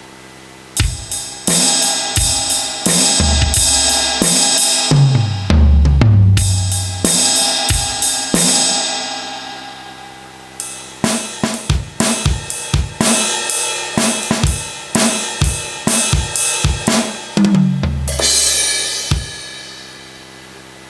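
Carlsbro OKTO A electronic percussion pad playing sampled drum-kit sounds: low toms stepping down in pitch, snare and kick hits and ringing crash cymbals. A quicker run of hits follows about halfway through, ending in another tom roll and a cymbal crash.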